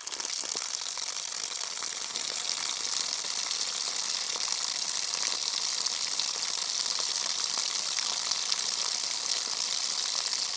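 Water running steadily from an outside faucet in a hissing rush, strongest in the highs with little low end.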